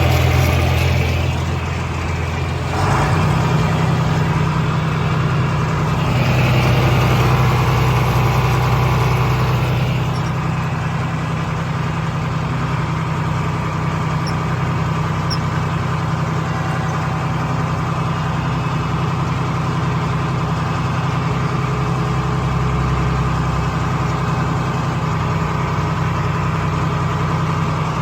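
Engine running steadily at a constant speed, its note shifting once about three seconds in.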